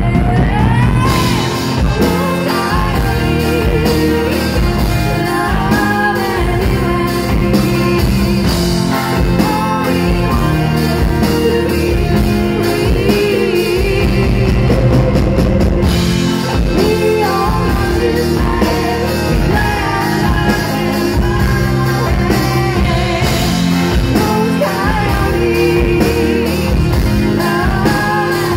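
Live rock band playing: a woman singing lead over electric guitar and drum kit.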